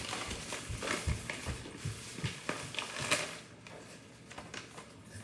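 Handling noise in a small room: scattered light knocks, taps and rustles, with a sharper click about three seconds in.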